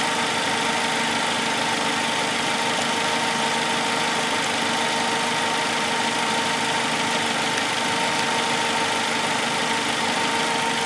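Suzuki four-cylinder engine idling steadily, with a constant hum, its shorted number-3 ignition coil newly replaced.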